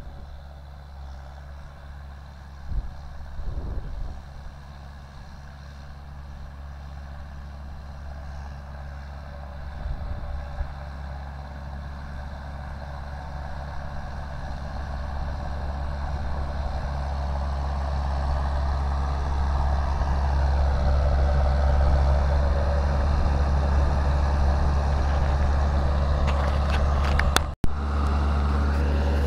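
John Deere tractor's diesel engine running steadily, growing louder as it approaches and then holding level. Near the end there is a sharp click and a momentary cut in the sound.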